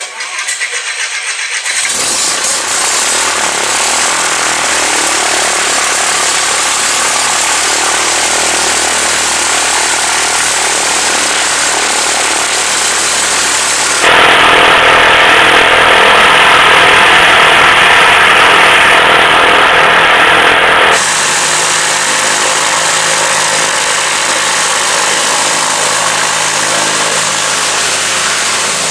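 Cessna 152's four-cylinder Lycoming piston engine starting up, building over the first couple of seconds, then running steadily with the propeller turning. About halfway through it gets louder and harsher for several seconds, then drops back to a steady run.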